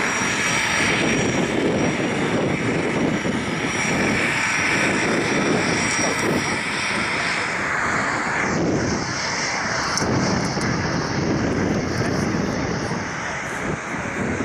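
Boeing 737-700's twin CFM56-7B turbofan engines running at high power as the jet rolls down the runway for takeoff. A steady, loud jet roar, with a thin high fan whine over it in the first half.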